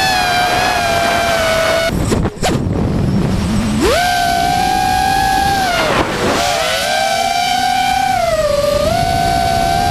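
Mini FPV quadcopter's electric motors and propellers whining in flight, heard from the onboard camera. About two seconds in the throttle drops, the pitch falls low and there are a couple of sharp knocks. Near four seconds the pitch rises steeply back to a high steady whine, which dips briefly twice more as the throttle changes.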